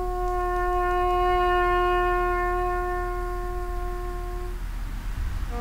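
A bugle call: one long held note of about four and a half seconds, then near the end a short low note and a higher note leading into another held note.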